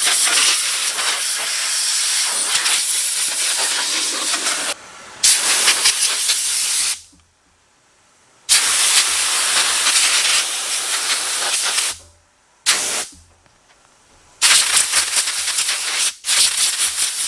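Compressed-air blow gun hissing in several long blasts, with short pauses and one brief puff between them, blowing dust out of a ductless mini-split's mesh air filters.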